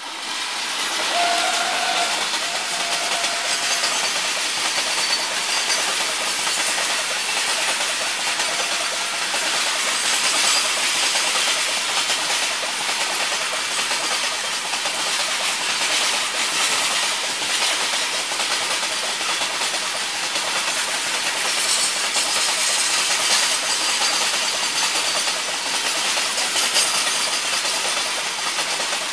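Loaded freight train of covered goods wagons running past at speed close by: a steady, loud rush of steel wheels on rail with rattling. The sound comes up sharply at the start as the electric locomotive passes.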